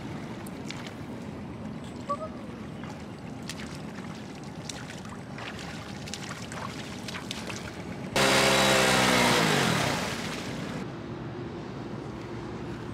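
Honda Wave step-through motorbike's engine running low, then about eight seconds in it is revved hard for a couple of seconds, its rear wheel spinning and throwing up water with a loud rushing splash. The engine note falls as the throttle is let off, and the splashing cuts off suddenly.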